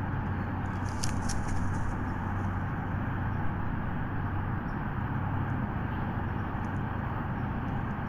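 Steady low rumble like distant road traffic, with a constant low hum from the outdoor nest-camera microphone. About a second in comes a brief cluster of faint high crackles.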